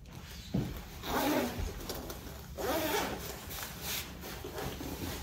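Clothing fabric rustling and rubbing in several short swishes, as garments are handled or put on.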